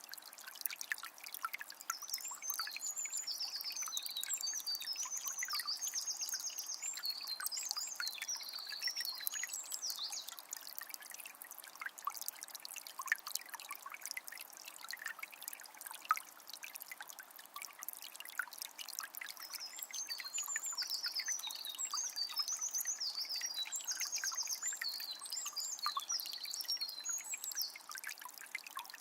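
Small spring's water trickling and splashing steadily. A songbird sings twice, each time a long string of quick, high chirps lasting several seconds.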